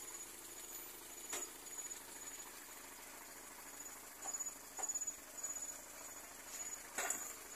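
High-pitched insect chirping in short, evenly repeated pulses, with a few sharp knocks, the loudest near the end.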